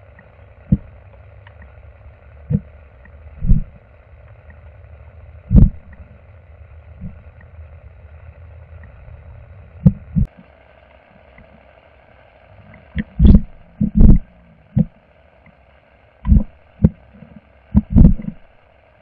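Muffled water sound picked up by a submerged camera: a steady low rumble and hiss with irregular dull thuds, coming more often in the second half.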